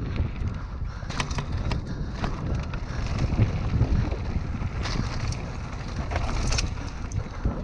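Wind buffeting the microphone and mountain bike tyres rolling fast over a dirt singletrack, a steady rushing rumble. Sharp clicks and knocks from the bike jolting over bumps break through it several times.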